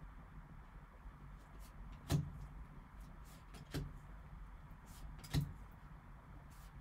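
Trading cards being flipped through by gloved hands. Three soft click-taps land about a second and a half apart as cards are moved through the stack, with fainter paper ticks between them over a low steady hum.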